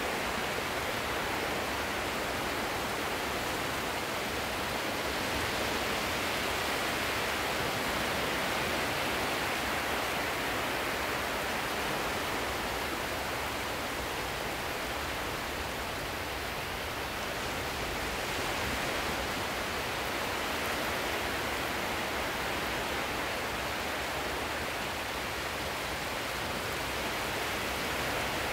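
Steady rushing wash of sea surf, swelling and easing gently every few seconds.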